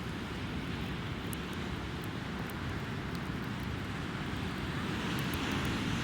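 Strong wind buffeting the microphone: a steady rumbling rush, with faint scattered crackles from the burning campfire.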